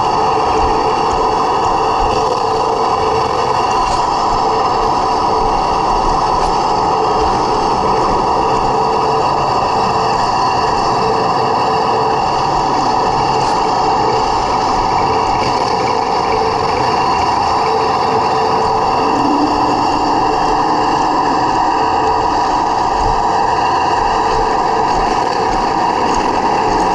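Heng Long 1/16-scale RC T-90 tank running, heard from on board: a loud, steady engine-like drone from the model's drive and sound unit, holding much the same pitch throughout.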